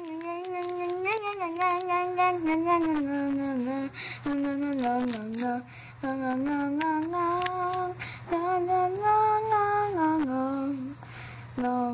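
A child's voice singing a wordless tune in long held notes that step up and down, in several phrases with short breaks, with light clicks of the toy figures being handled.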